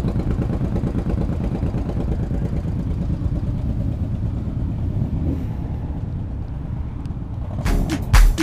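Motorcycle engine running with a dense, fast-pulsing low rumble that slowly fades. Near the end a dance-music beat with a heavy kick drum comes in.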